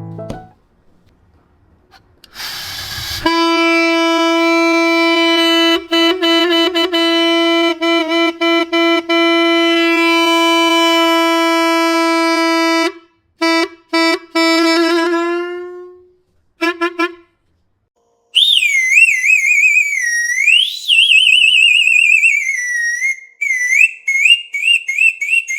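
Homemade air horn: a short hiss of air, then a loud, steady horn note rich in overtones, held for about ten seconds, then sounded in a few short blasts that fade out. After a pause, a high whistle-like tone wavers rapidly up and down.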